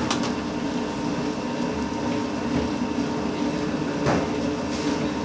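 Steady mechanical hum over a hiss, with two sharp clicks: one at the start and one about four seconds in.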